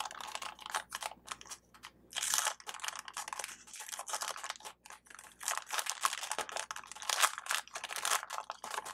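Clear plastic packaging sleeve crinkling in irregular crackles as it is peeled open and worked off a cardstock backing card, loudest about two and a half seconds in and again near the end.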